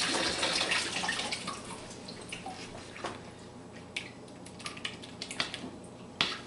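Kitchen tap running into the sink for roughly the first two seconds, then a utensil clicking against a ceramic mixing bowl a few times as thick muffin batter is stirred.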